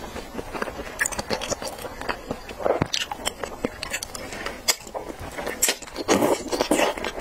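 Close-miked wet mouth sounds of eating raw salmon sashimi: a long slice slurped in and chewed, with many small smacks and clicks.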